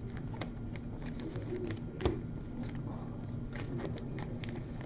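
Baseball cards being handled and slid through the fingers: scattered light clicks and rustles, one a little louder about two seconds in, over a low steady hum.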